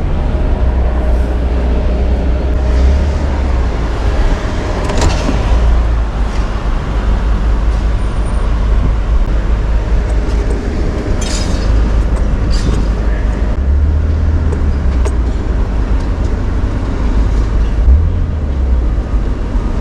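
Truck engine idling with a steady low rumble, plus a few short clicks or knocks now and then.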